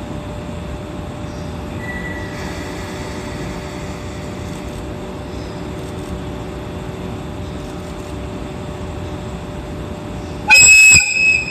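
Steady hum while the EF81 electric locomotive stands at the platform. About ten seconds in comes a short, very loud, shrill blast of the locomotive's air whistle, which tails off quickly: the departure signal as it sets off.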